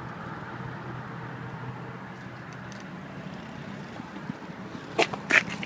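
Steady outdoor background hum and rumble, then two sharp clicks close together about five seconds in.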